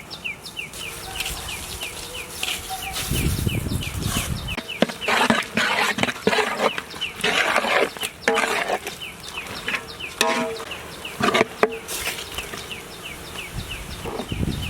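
A rapid train of short, high, falling chirps, about five a second, keeps going throughout. Irregular bursts of rustling, clattering noise come and go alongside it, with a couple of brief animal-like calls near the middle.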